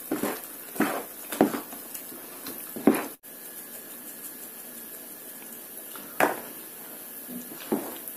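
A spoon stirring thick, wet yeast dough in a plastic bowl: irregular squelching knocks, the loudest about three seconds in. After a short break the sound goes quieter, with a couple more strokes near the end.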